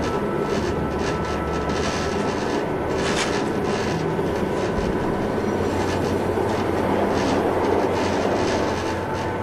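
Passenger train running at speed, heard from inside the carriage: a steady rumble and hiss of wheels on the rails, with recurring clicks from the track and a faint steady whine.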